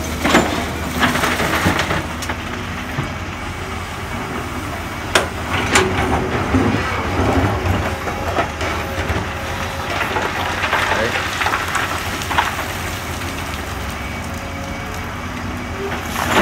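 Komatsu PC200 excavator's diesel engine running steadily while rock clatters and knocks: stone tipped from the bucket into a steel dump truck bed, then the bucket digging into broken rock. Several sharp knocks come in the first six seconds.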